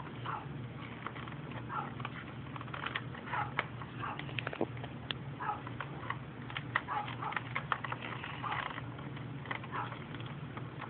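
Handling noise of small plastic toys and the phone filming them: scattered light clicks, taps and rustles over a low steady hum.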